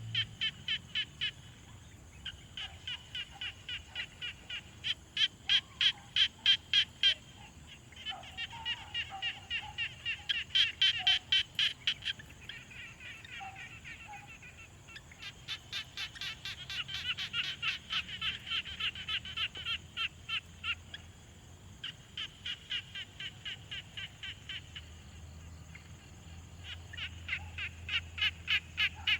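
Pond frogs calling in a chorus: runs of rapid, evenly repeated pulsed notes, one to several seconds long, with short pauses between runs and several frogs overlapping at times. A faint steady high tone runs underneath.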